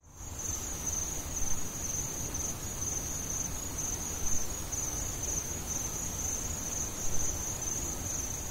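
Crickets chirping: a steady, pulsing high trill over a faint low background rumble.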